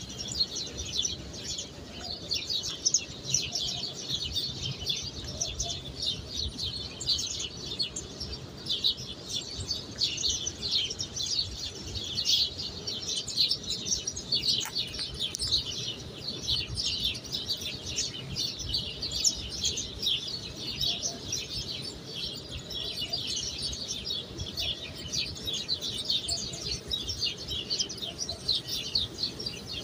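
Many small birds chirping continuously in a dense, overlapping chorus of short high chirps.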